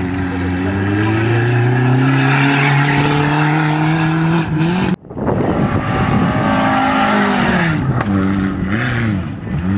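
Rally car engine at hard throttle, its pitch climbing steadily for about four and a half seconds. After an abrupt cut, a rally car's engine revs up and down in quick swells.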